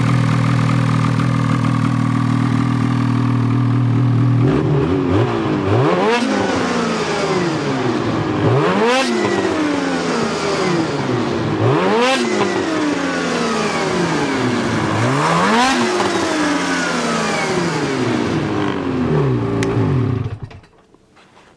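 Ski-Doo 800 E-TEC two-stroke twin snowmobile engine breathing through an aftermarket trail can exhaust, idling steadily, then revved and let fall back about every three seconds, four times, before being shut off near the end.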